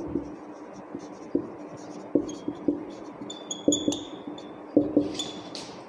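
Marker pen writing on a whiteboard: a string of irregular short taps and strokes as letters are formed, with brief high squeaks from the felt tip twice, in the middle and near the end.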